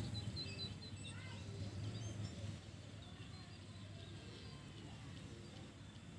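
Small birds chirping outdoors, several short high calls in the first second or so and scattered ones after, over a low hum that fades about two and a half seconds in.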